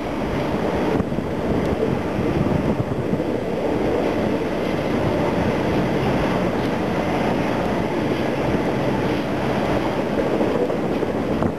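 White refrigerated boxcars of a freight train rolling past: a steady, continuous noise of steel wheels on the rails.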